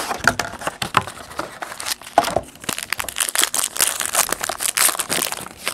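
Shiny plastic wrapper of a trading-card pack crinkling and crackling as the pack is handled and torn open.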